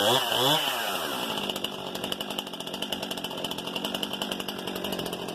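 New Stihl MS 261 C-M VW two-stroke chainsaw being run in: blipped up and down twice about a second in, then settling back to a steady idle.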